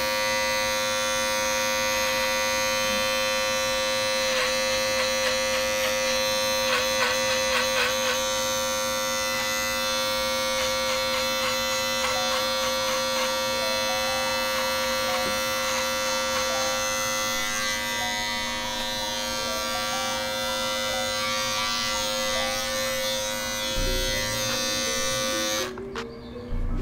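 Corded electric hair clippers buzzing steadily while cutting short hair, the buzz fluttering in a few short stretches. The clippers are switched off about a second before the end.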